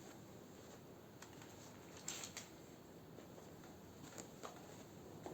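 Near silence: faint room tone with a few light clicks, a small cluster about two seconds in and two more near the end, like small parts being handled.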